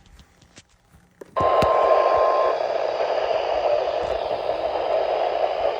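A weather alert radio's speaker suddenly opens into loud, steady static about a second and a half in, with a single steady beep sounding over the static for about a second.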